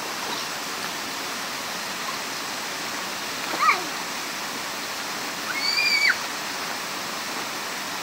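Steady rush of water pouring over a low waterfall ledge into a shallow rocky stream. Two short high-pitched calls cut through it, one brief at about three and a half seconds and a longer one around six seconds.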